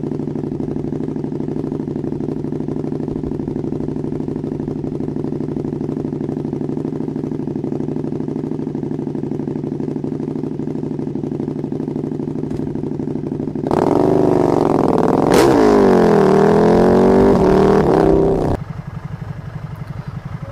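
Motorcycle engine idling steadily, then revved hard for about five seconds, its pitch sweeping up and down, before cutting off abruptly to a quieter idling engine.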